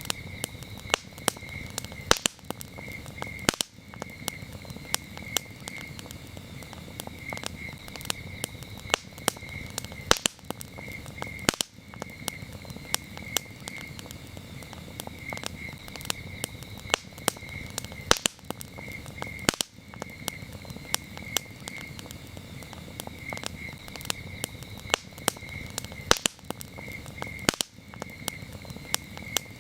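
Campfire crackling and popping in irregular sharp snaps, over a steady, continuous chorus of crickets chirping in a rapid pulsing trill.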